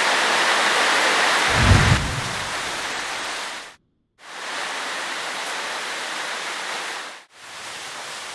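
Steady rain hiss, with a short low rumble about a second and a half in. The rain drops out to silence twice, briefly, near the middle and near the end.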